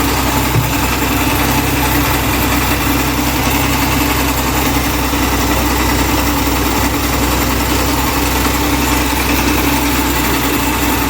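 Maruti 800 (SS80) 796 cc three-cylinder petrol engine idling steadily after restoration, its timing set correctly and the engine note described as 'pakka' (spot-on).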